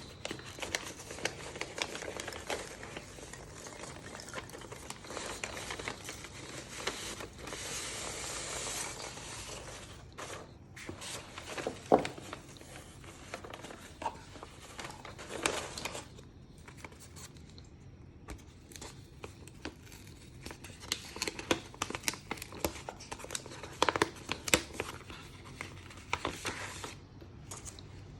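Packaging being unboxed by hand: paper and plastic rustling and crinkling with scattered taps and clicks. Busy handling for the first half, then quieter with separate taps and clicks.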